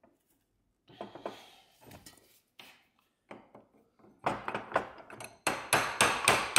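Hammer tapping a steel bar to drive the corroded pad retaining pin out of a Brembo 18Z six-piston brake caliper. A few scrapes and clinks come first, then from about four seconds in quick, repeated metal-on-metal strikes, about three a second, getting louder as the stuck pin is knocked through.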